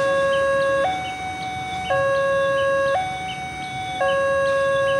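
Electronic two-tone railway warning alarm, switching between a low tone and a higher tone about once a second and repeating steadily, signalling an approaching train.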